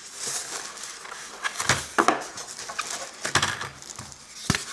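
Plastic wrap crinkling and foam packing end caps rubbing as they are pulled off a boxed bathroom scale, with a few short knocks from handling.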